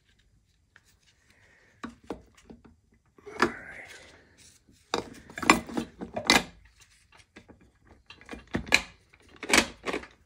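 Steel gear and shaft parts of a ZF 8HP automatic transmission being worked into the gearbox case by hand. Quiet for about two seconds, then a run of sharp metal clinks and knocks, the loudest around the middle and near the end.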